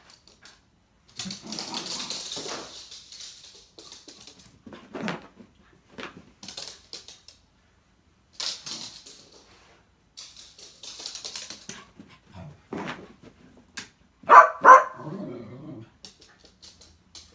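Dog barking: two short barks in quick succession about three quarters of the way through, with quieter scuffling noises before them.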